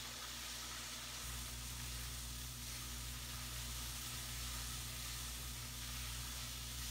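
Spiced cauliflower rice mixture sizzling steadily in a frying pan on the stove, with a low steady hum underneath.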